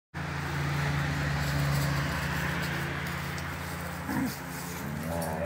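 Dogs at play, with a brief dog vocal sound about four seconds in and another starting near the end, rising in pitch, over a steady low hum.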